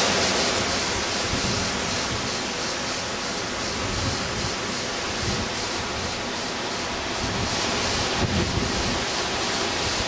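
Hurricane wind and rain: a steady, dense rushing noise, with gusts buffeting the microphone.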